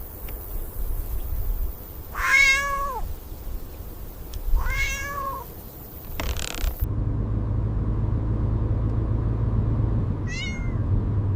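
Cat meowing: two long meows about two and four seconds in and a shorter one near the end, over a low steady hum that sets in about halfway through.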